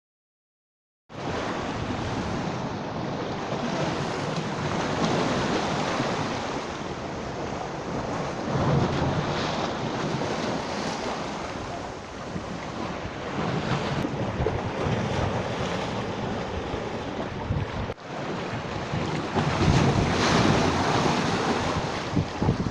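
Sea surf washing and breaking, swelling and easing, with wind buffeting the microphone. It begins about a second in and drops out for an instant about three quarters of the way through.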